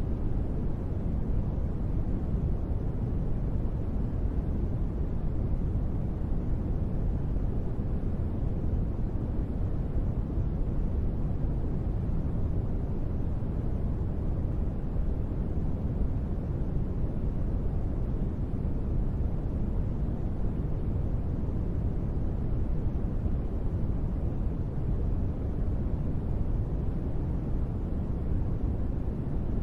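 Continuous sleep-aid noise track, a steady, even hiss weighted toward the deep end with little treble, unchanging throughout.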